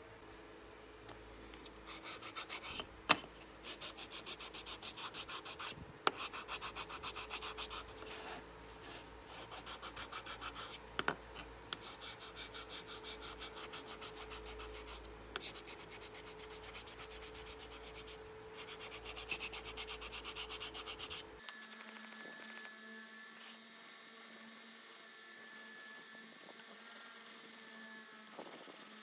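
Sanding block rubbing over the thin wooden rim and spokes of a model wagon wheel in quick back-and-forth strokes, in several bursts with short pauses: final sanding before painting. The sanding stops about three-quarters of the way through.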